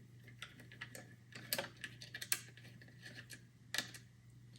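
Irregular small metallic clicks and taps as a screwdriver works out the screw holding a motherboard's M.2 heatsink, over a faint steady hum.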